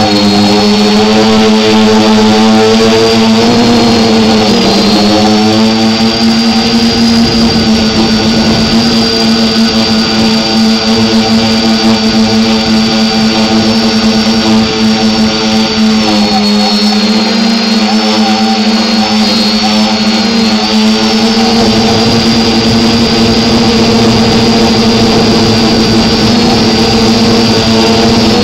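Quadcopter drone's electric motors and propellers humming loudly and steadily, with a high whine above, the pitch wavering briefly a couple of times.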